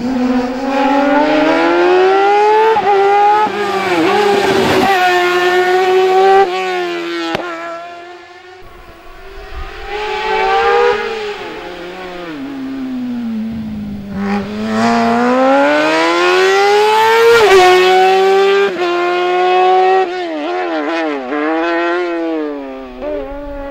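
Race car engine revving hard through a cone slalom. Its pitch climbs steeply with sudden drops at the gear changes, sags as the car slows around the middle, climbs again to a peak, and ends in short quick blips.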